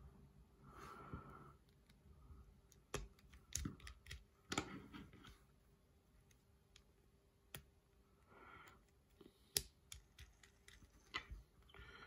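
Faint, irregular clicks and taps of plastic Lego-compatible building bricks being handled and pressed together.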